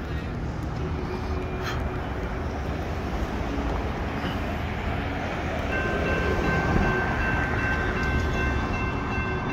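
A vehicle drives past over a steady low rumble, and about halfway through the grade-crossing warning starts up, a steady high ringing tone as the crossing signals activate for an approaching freight train.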